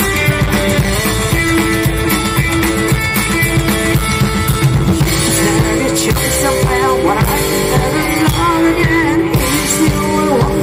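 Live rock 'n' roll band playing loudly: electric guitar over a drum kit and upright double bass, with a voice singing over it in the second half.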